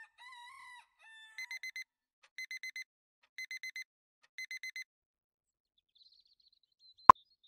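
A rooster crows briefly. Then an electronic alarm clock beeps in groups of four quick beeps, one group about every second, four groups in all. A faint high tone and a single sharp click come near the end.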